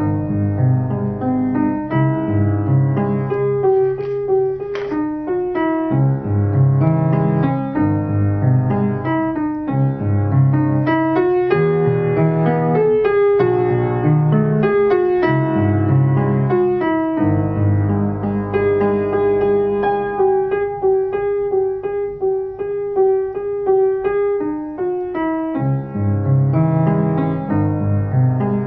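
Piano music with a sustained low bass line under a melody of repeated notes.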